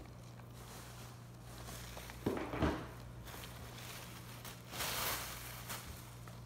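Handmade foam squishies being handled and stacked on a surface: two soft thumps about two and a half seconds in, then a brief rustle about five seconds in.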